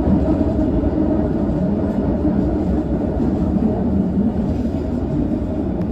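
London Underground train running: a loud, steady rumble that cuts off suddenly near the end.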